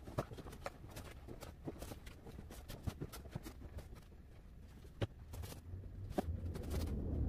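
Cardboard boxes being set down and stacked, with scattered soft knocks and taps and footsteps, and one sharper knock about five seconds in. A low rumble builds near the end.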